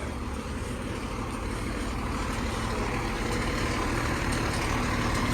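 Fire apparatus diesel engine running, a steady low rumble that grows gradually louder.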